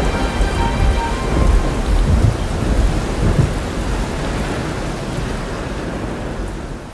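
Thunderstorm sound effect: steady heavy rain with low rumbles of thunder, gradually fading out toward the end.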